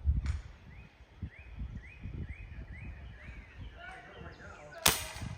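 A single sharp crack of an air rifle firing, near the end; the pellet goes just high of the balloon target. Before it, a bird gives a run of short rising chirps about twice a second, over low wind rumble on the microphone.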